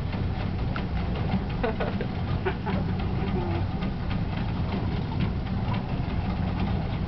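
Boat's engine running steadily at idle, a low even drone. Scattered clicks and a few short squeaky sounds sit over it.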